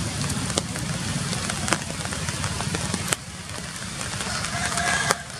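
Steady rain falling on forest leaves, with a few sharp drops striking close by now and then.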